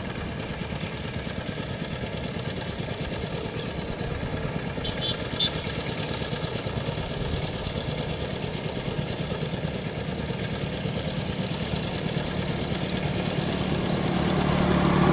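Two-wheel walk-behind power tiller's single-cylinder diesel engine running under load with a fast, even beat as it drives through flooded paddy mud. It grows louder near the end.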